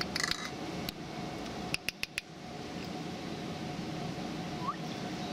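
A steady rushing background noise with a few sharp clicks on top: one short rattly click near the start, three quick clicks about two seconds in, and a faint short upward chirp near the end.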